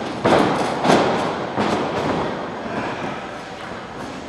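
Wrestlers' bodies and feet thudding on the wrestling ring's canvas and boards, echoing around a large gym hall: two strong thuds in the first second, then a weaker one about a second and a half in.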